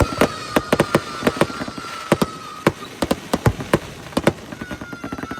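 Fireworks going off in rapid, irregular bangs and cracks, several a second, with a thin whistling tone underneath that fades out about two and a half seconds in.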